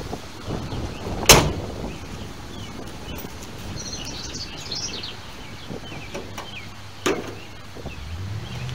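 The driver's door of a 1976 Ford LTD slammed shut once, a single sharp bang about a second in. Birds chirp in the middle, and a second, lighter knock comes near the end.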